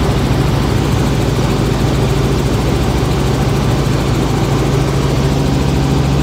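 Helicopter engine and rotor noise heard from inside the cabin: a loud, steady drone with a strong low hum.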